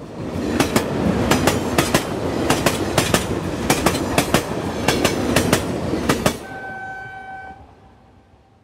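Train passing close by, its wheels clattering over rail joints in quick pairs of clicks about twice a second. About six seconds in the noise drops away, a steady high tone sounds for about a second, and the train fades out.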